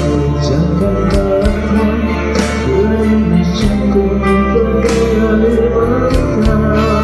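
Music: a song with guitar over a steady bass and beat, with a voice singing.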